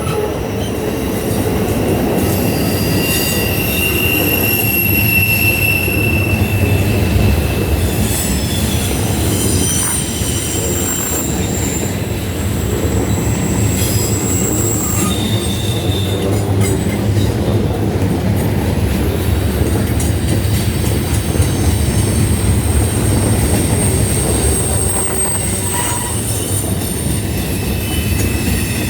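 Train cars rolling slowly past on a connection track, with a steady low rumble and high wheel squeal that comes and goes as the wheels grind against the rail.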